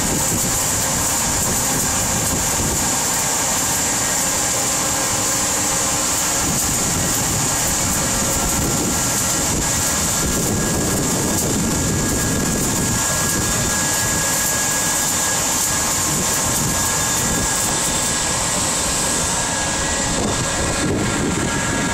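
Steady, loud industrial machinery drone with a constant high hiss and a few faint steady hums, unchanging throughout.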